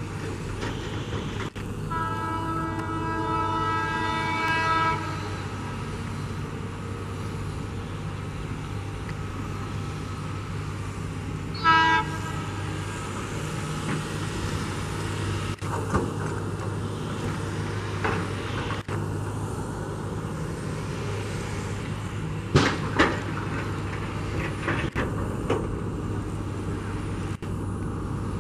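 Twin ALCO diesel locomotives approaching with a steady low engine drone. The horn sounds one long blast of about three seconds, then a short toot about ten seconds later. A couple of sharp knocks come near the end.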